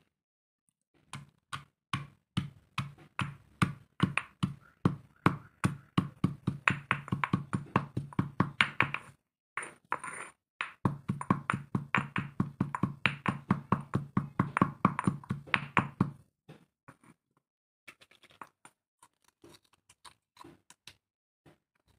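Stone pestle pounding into a stone mortar, crushing small pink and white balls with quick repeated knocks, a few a second, speeding up. The pounding pauses briefly about nine seconds in, resumes, and stops about sixteen seconds in, leaving a few faint taps and clicks as the crushed pieces are handled.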